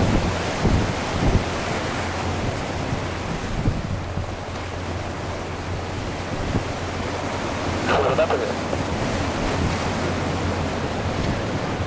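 Jet airliner landing and rolling out: a steady rushing roar of its engines and airflow, with wind buffeting the microphone and a few louder gusts in the first second or so.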